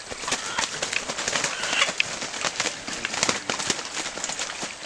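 Dry leaf litter and twigs crackling and rustling: a close, dense run of sharp snaps and rustles.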